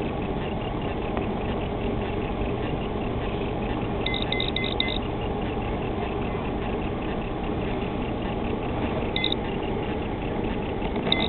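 Steady running noise of a boat on the water, with short high electronic beeps: a quick run of about five around four seconds in, and single ones twice near the end.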